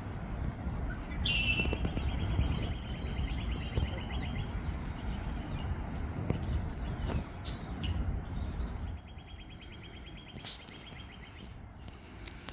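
A small songbird singing a rapid, even trill twice, with other short bird chirps between. A low rumble underneath stops about nine seconds in.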